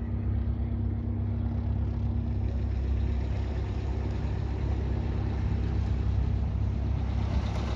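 Engine running steadily with a deep rumble, and a faint hum on top that slowly fades.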